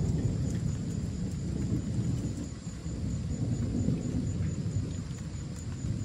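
Thunder rumbling low and unbroken, rising and falling, with light rain pattering.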